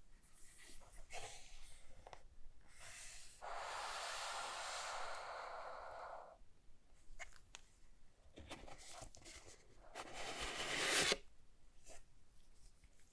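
Cardboard and plastic packaging being handled: rustling and light knocks, a steady scraping slide for about three seconds, and a rising scrape near the end that stops abruptly.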